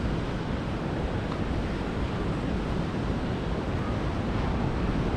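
Wind buffeting the microphone: a steady rushing noise, heaviest in the low end, with no distinct events.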